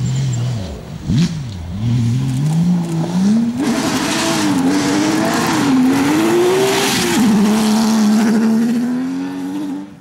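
Porsche 911 GT3 rally car's flat-six engine revving hard on loose gravel. Its note climbs over the first few seconds, then swings up and down as the car slides through the corner with gravel spraying, and settles to a steady high note near the end. There is a short crack about a second in.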